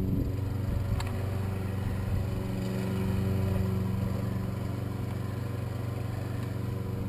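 Steady low mechanical hum of a running motor, unchanging throughout, with a single sharp click about a second in.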